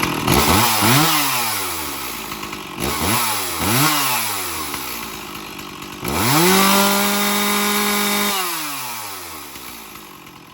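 Two-stroke chainsaw engine revved in quick blips, rising and falling in pitch three times. It then climbs to full throttle at a high steady pitch for about two seconds before the revs drop away. The saw is running on a new air filter and filter cover and pulls with plenty of power.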